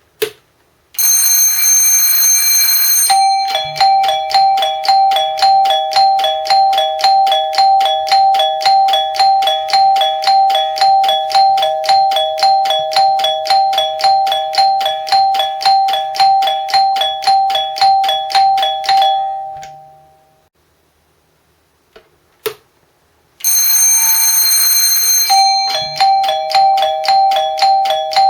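Homemade replica of a JR ATS-S cab warning. An electric alarm bell rings for about two seconds, then cuts out as the repeating two-tone ATS chime takes over, pulsing about twice a second; the circuit cannot yet sound bell and chime together. The chime fades out, a couple of clicks follow, and then the bell rings for two seconds again before the chime restarts near the end.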